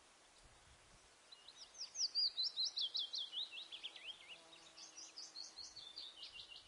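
A bird singing: a rapid run of high, sweeping chirps, several a second, starting about a second in and loudest soon after.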